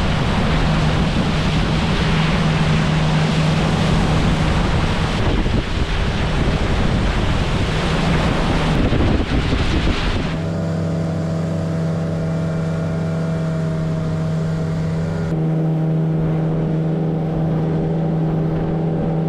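A 115 hp Suzuki four-stroke outboard running steadily, a constant low hum under way. For about the first ten seconds loud wind and water rush mask it; then the engine's even, multi-toned hum comes through more clearly.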